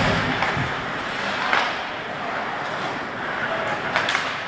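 Ice hockey play: skates scraping and hissing across the ice, with three sharp clacks of sticks and puck, at the start, about a second and a half in and near the end.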